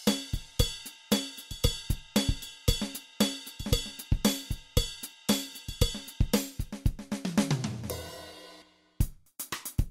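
Background music with a steady, drum-led beat of kick, snare and cymbals. About three-quarters of the way in, a falling sweep replaces the beat and fades to a brief silence before the drums come back near the end.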